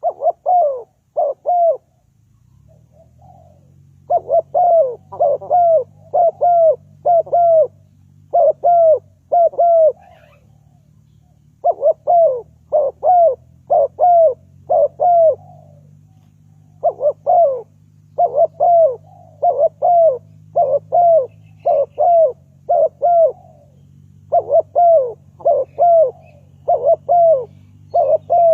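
Spotted dove cooing: short, arched coos repeated in phrases of several notes, each phrase separated by a pause of a second or two. A faint low steady hum runs underneath from about two seconds in.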